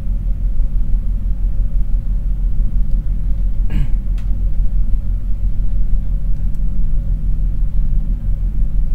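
Steady low rumble with a faint hum line above it. There is a short noise just before four seconds in, and a few faint ticks after it.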